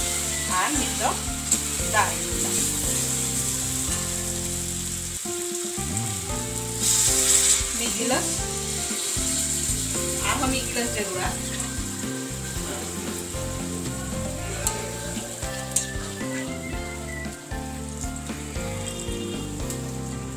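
A jackfruit and shrimp curry sizzling as it fries on high flame in a steel kadai, stirred with a metal spatula that scrapes the pan now and then. The sizzling surges louder about seven seconds in.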